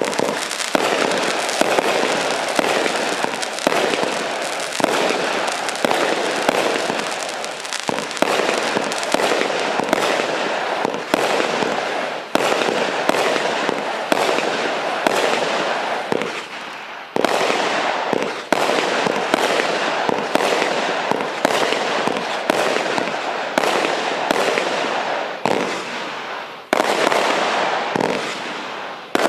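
Cube Fireworks Thunderbolt firework going off in a rapid, continuous barrage of shots and bursts, several a second. It dips briefly twice before picking up again.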